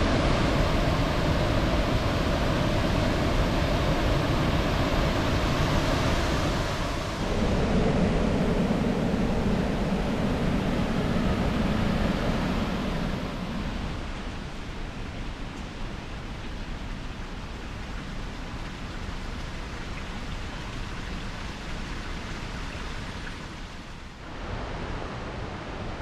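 Steady rush of creek water over rocks, an even hiss with no distinct events. It is louder for about the first thirteen seconds, then settles lower, with a further shift near the end.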